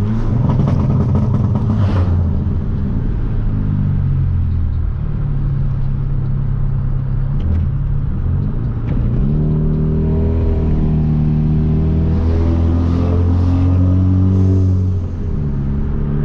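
Hyundai Veloster Turbo's turbocharged 1.6-litre four-cylinder with a catless downpipe, driving at a steady cruise. About nine seconds in the engine note climbs and holds higher as it pulls, then drops back shortly before the end.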